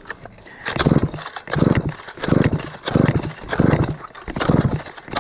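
Stihl 051 two-stroke chainsaw being cranked over by its recoil pull starter with a compression gauge in the plug hole. Six quick short pulls start about a second in, each a rope rasp and the engine turning over against compression. It does not fire because there is no spark plug.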